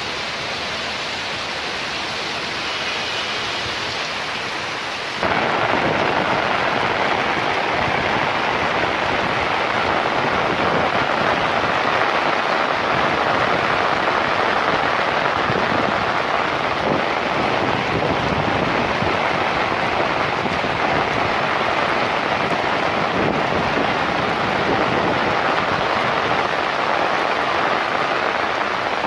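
Heavy rain pouring down in a steady dense hiss, jumping louder about five seconds in.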